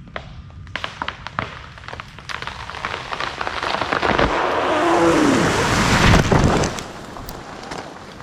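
Oak tree falling: the wood cracks and snaps in a quickening series, building into a loud rush of branches and leaves with a falling creak, heaviest with a low crash about six seconds in, then fading.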